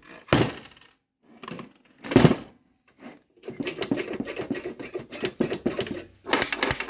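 Knocks on a 1963 payphone's coin mechanism, then a rapid metallic clicking and rattling from a few seconds in as stuck coins are jarred loose inside.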